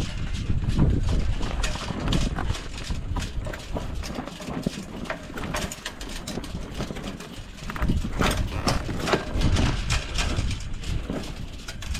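Strong wind buffeting the microphone, a low rumble that surges and eases, with many irregular light knocks and slaps throughout.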